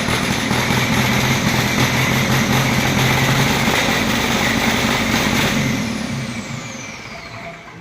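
JCB diesel engine running loudly, an engine with a misfire problem; about five and a half seconds in it is shut off and runs down, dying away with a falling whine.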